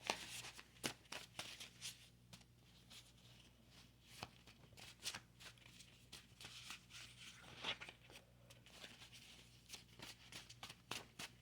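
Tarot cards being handled: faint, irregular soft clicks and rustles over a low room hum.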